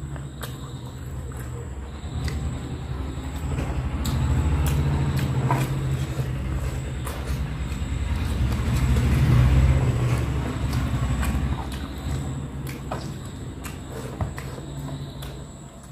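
Fingers picking through fried fish and rice on a metal tray, with small wet clicks and ticks, and eating by hand. Under it a low rumble swells over several seconds, is loudest a little past the middle, then fades.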